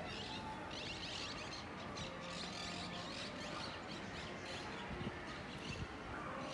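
Small birds chirping in quick repeated twitters, over a steady outdoor background with faint distant voices. Two short low thumps come about five and six seconds in.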